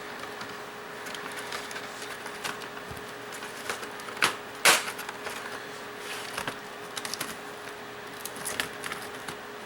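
Plastic clips of an HP laptop's case clicking and snapping as the case is pried apart, scattered small clicks with two louder snaps a little under halfway through.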